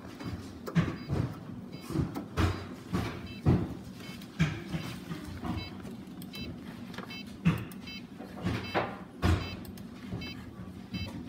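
Fujitsu ESPRIMO desktop PC running with an abnormal noise: irregular knocks and rattles at uneven intervals over a steady low hum.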